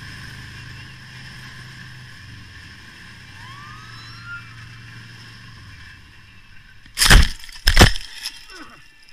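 Motorcycle engine running steadily under road noise, then about seven seconds in two loud crashes less than a second apart as the motorcycle crashes and falls over, followed by brief rattling.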